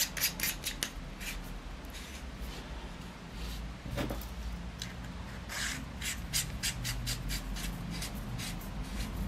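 Hands handling a small canister and metal tool parts at a table: light clicks and rubbing, with a sharper click about four seconds in and a run of quick clicks in the second half.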